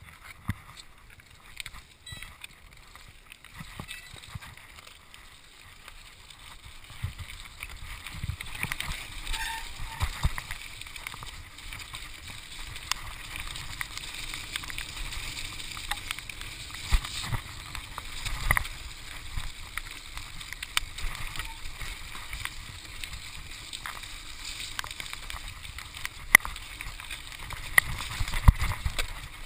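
Mountain bike riding fast down a dirt and gravel trail: continuous tyre noise with the bike rattling and knocking over bumps, growing louder about seven seconds in as speed picks up.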